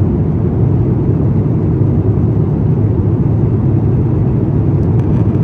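Steady low rumble inside the passenger cabin of an Airbus A350-900 in flight: engine and airflow noise, even throughout.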